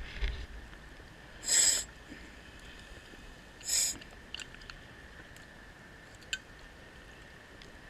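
Underwater sound of a diver's breathing gear: two short hisses about two seconds apart, over a faint steady hiss with a few small clicks.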